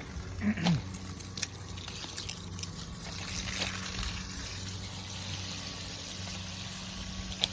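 Water heater flush water running steadily out of the drain onto the ground, carrying sediment flushed from the bottom of the tank. A brief falling squeak is heard about half a second in.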